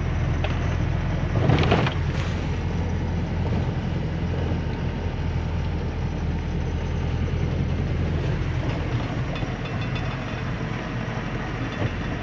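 Truck engine running steadily under way, heard from inside the cab as a continuous low drone, with a brief louder noise about one and a half seconds in.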